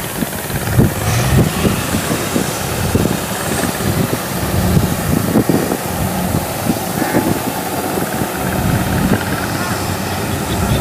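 Diesel engines of a Kubota combine harvester and a tractor running in a muddy rice field, with workers' voices calling out faintly.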